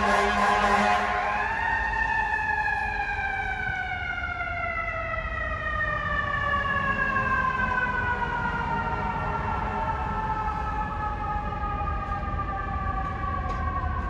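A fire truck's horn sounds a steady chord that stops about a second in. Then its mechanical siren winds down in one long, slowly falling wail, over low street-traffic rumble.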